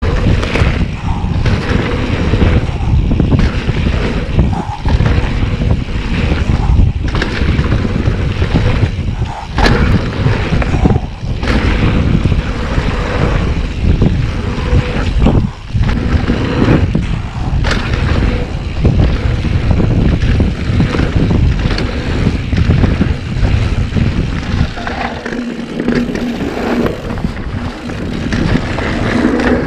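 Wind buffeting the action-camera microphone on a descending mountain bike, with tyre noise on a dirt trail and frequent knocks and rattles from the bike over bumps.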